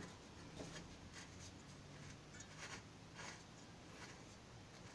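Near silence: room tone with a few faint, short scrapes and ticks of hands and tools handling the motorcycle.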